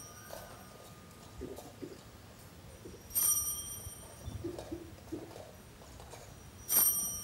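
Altar bell struck twice, about three and a half seconds apart, each strike ringing out and fading, marking the elevation of the chalice at the consecration of the Mass.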